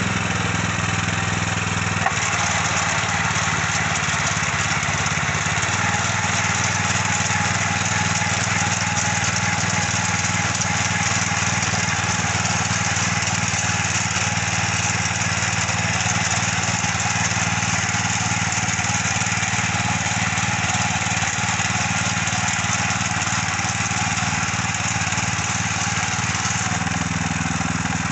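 Small petrol engine of a mini tiller (cultivator) running steadily under load as its tines churn grassy soil. The engine note shifts slightly about six seconds in and again near the end, with one brief click about two seconds in.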